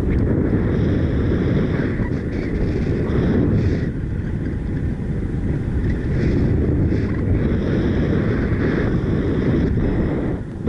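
Loud wind buffeting the microphone, a heavy low rumble that surges and eases, from a paraglider flying in strong, gusty wind.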